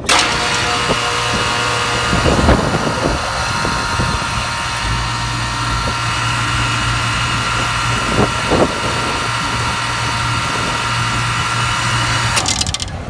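Hermetic air-conditioning compressor running without pumping: a steady hum under a high whine, with a few knocks. It cuts off shortly before the end. The technician suspects a broken valve or rod inside.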